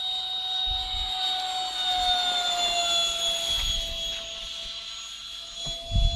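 Electric ducted-fan motor of an RC jet model in flight: a steady high whine that drops in pitch about two to three seconds in as the model passes, then fades a little. A low buffeting rumble comes in near the end.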